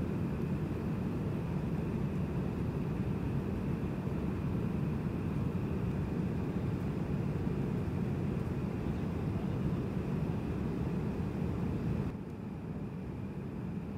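Steady drone of an airliner cabin in flight, engine and airflow noise sitting mostly low, dropping a little in level about twelve seconds in.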